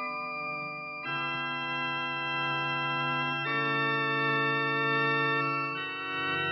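Instrumental music from a 1972 vinyl record: slow, sustained held chords that change about a second in, again midway and again near the end.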